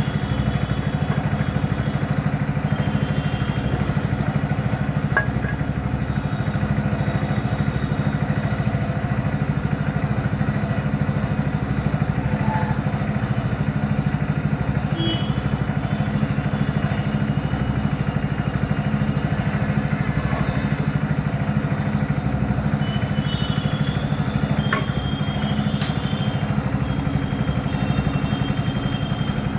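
Hero Splendor i3s motorcycle's single-cylinder engine running steadily at idle.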